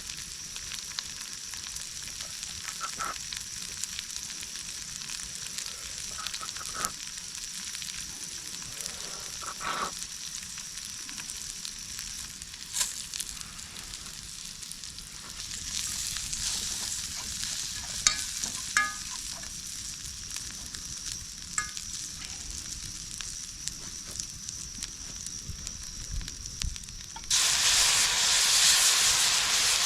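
Garlic and rice sizzling in hot oil in a pan over a campfire, with occasional taps and scrapes of a utensil stirring. Near the end the sound jumps suddenly to a much louder, rushing hiss.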